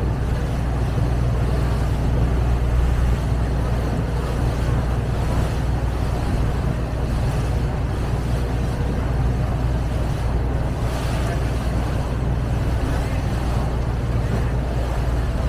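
Steady low drone of a river tour boat's engine heard from on board, with a haze of water and wind noise over it.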